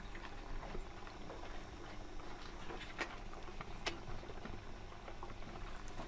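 Calf drinking milk: faint, irregular wet sucking and slurping clicks, with two sharper clicks about three and four seconds in.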